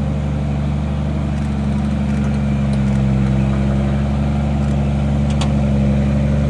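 Off-road vehicle's engine running steadily at low revs as it crawls up a rock obstacle, held smooth under light throttle.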